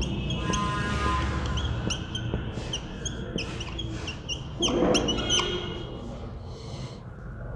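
Whiteboard marker squeaking in many short, irregular squeaks as words are written on the board.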